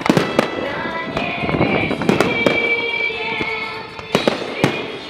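Fireworks salute: aerial shells bursting overhead with sharp bangs, a pair near the start and another pair about four seconds in.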